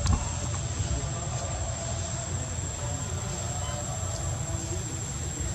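Outdoor background noise: a steady low rumble with a constant thin, high-pitched whine over it.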